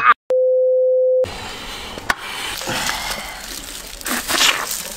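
A single electronic beep, one steady mid-pitched tone lasting about a second, near the start. After it come quieter handling sounds with a sharp click about two seconds in, as cooked meat is pulled apart by hand.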